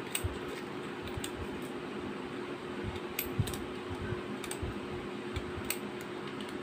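Scattered light metallic clicks and taps from handling a CO2 airsoft revolver's cylinder and its loaded shells, over a steady low hum.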